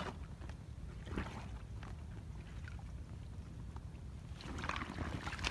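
Shallow water sloshing and splashing as a wire-mesh fish trap is handled in it, with scattered small clicks over a steady low rumble. The splashing picks up near the end.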